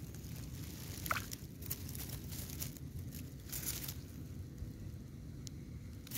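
Light rustling and crackling close to the microphone, a few separate crackles over a steady low rumble, with a louder rustle right at the end.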